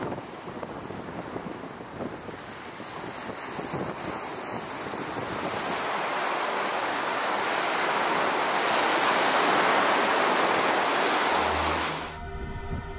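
Rough sea surf and wind. Wind buffets the microphone with a low rumble in the first few seconds, then the rush of breaking waves swells, loudest in the second half. It drops away about a second before the end, as music begins.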